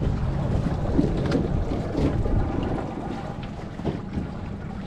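Wind buffeting the microphone, a steady low rumble, over water moving around the boat, with a few faint knocks.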